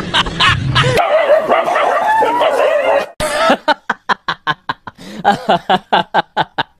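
A dog whining and yelping in wavering cries, then, after a brief break, letting out a rapid run of short yips, about five or six a second.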